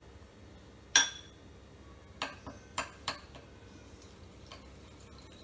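Metal spoon stirring a butter, lemon and herb marinade in a small glass bowl: one sharp ringing clink of spoon on glass about a second in, then a few lighter clinks and taps.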